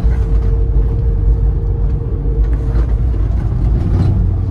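Loud cabin noise of a Chevrolet Tornado cargo van on the move: a steady engine and road rumble with a constant hum. The closed sliding side doors knock a few times in the second half, as if they were open.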